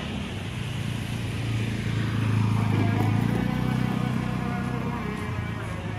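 Small motor scooter engine passing by, its low buzzing hum swelling about two seconds in and fading away after.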